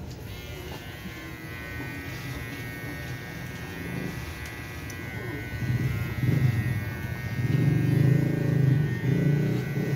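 Electric hair trimmer buzzing steadily as it is run over a closely shaved scalp.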